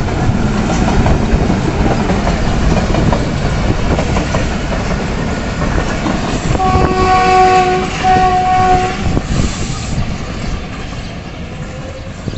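Freight train with two diesel locomotives and tank wagons rumbling past. About six and a half seconds in, a locomotive's multi-tone horn sounds for about two and a half seconds, broken once in the middle. The rumble fades near the end as the train moves away.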